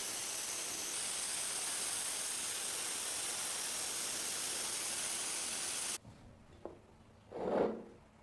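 Paint being sprayed onto a die-cast model: a steady hiss that cuts off suddenly about six seconds in. A short dull thud follows near the end.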